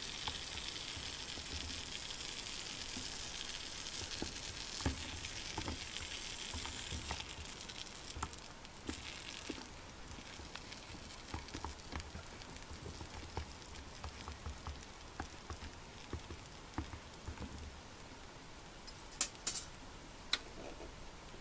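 Water sizzling under whole mini sweet peppers steaming in a stainless steel skillet, the water boiling off. The steady sizzle fades about a third of the way in to scattered small pops and crackles, with a few sharp clicks near the end.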